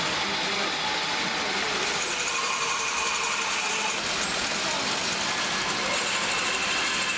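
Small metal lathe running steadily while it machines a hex bolt, a continuous mechanical whir with a faint steady whine over it.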